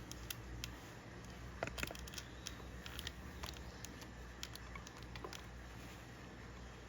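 Scattered light clicks and taps of small hard parts being handled, over a low steady hum.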